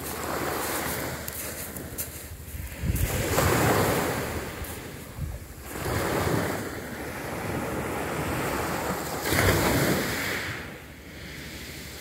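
Small waves breaking and washing up on a pebble beach, a steady surf hiss that swells with each wave roughly every three seconds.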